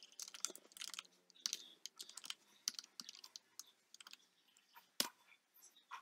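Computer keyboard being typed on in quick, irregular key taps, with a sharper key press about five seconds in as the command is entered.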